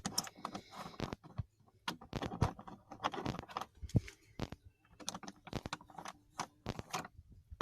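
Irregular light clicks, knocks and rattles of handling, many short sharp sounds scattered unevenly.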